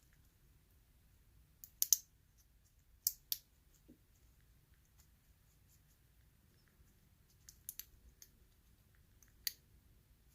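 Sharp, scattered metal clicks and taps as a thin shim is worked into the tight gap around a challenge lock's cylinder, the loudest pair about two seconds in and another near the end.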